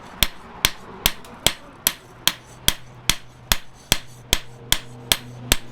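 Hammer blows on steel at a steady, even rhythm of about two and a half sharp strikes a second, with a steady low hum underneath.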